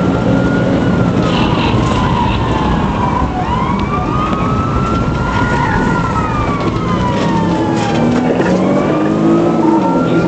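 Police car siren on a wail, its pitch rising and falling slowly about every four seconds, over steady engine and road noise from the moving cruiser.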